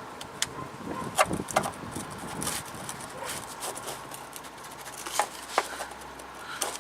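Scattered light clicks and knocks of hand work on a fuel line, pushing it into a quick connector.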